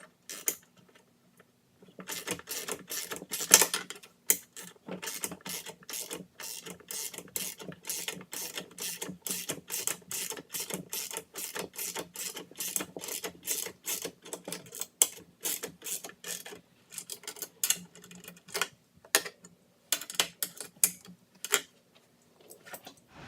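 Hand ratchet wrench clicking stroke after stroke as a bolt is turned, about two to three clicks a second, with a few short pauses.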